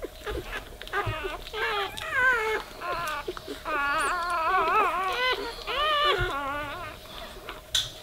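Newborn Weimaraner puppies squealing and whimpering: many short, high, wavering cries overlapping one another, with a short click near the end.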